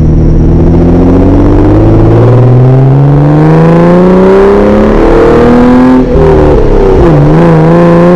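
Jeep Wrangler JKU's 3.6 L Pentastar V6 running through an aFe 3-inch cat-back exhaust, accelerating. The exhaust note rises steadily in pitch for about six seconds, dips briefly around seven seconds in, then climbs again.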